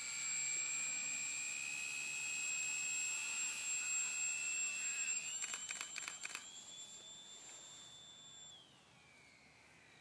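Electric motor and propeller of a radio-controlled model glider whining at a steady high pitch, stepping higher about five seconds in, then dropping and fading near the end as the glider flies off. The motor is running on a nearly flat battery.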